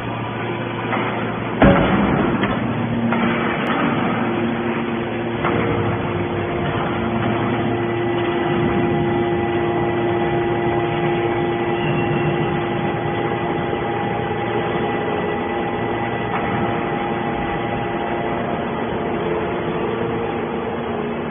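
Hydraulic scrap-metal baler running: a steady machine hum with several held tones, and one sharp bang about two seconds in.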